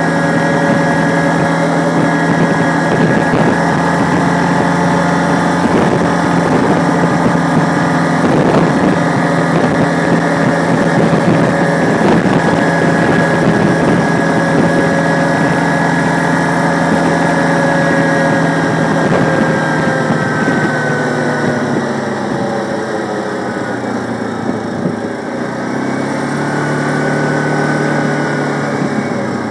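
Quad (ATV) engine running steadily while riding. About two-thirds through, the engine note falls as the throttle eases off, rises again briefly, then drops once more near the end.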